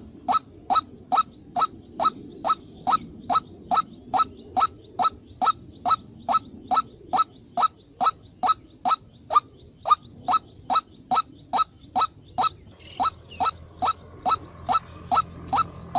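A bird call: a short rising chirp repeated steadily, about twice a second.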